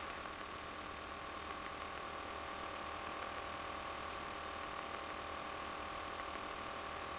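Faint, steady cabin drone of an RV-9A light aircraft's engine and propeller in level cruise, an even hiss with a constant hum.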